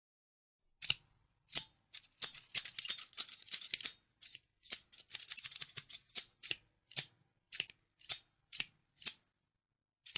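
Scissors snipping. There are quick runs of snips in the first half, then single snips about every half second.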